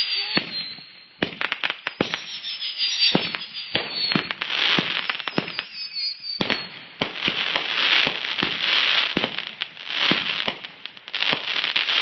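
Consumer fireworks going off: a rapid run of sharp pops and bangs with dense crackling, and high whistles that slide slowly down in pitch during the first half.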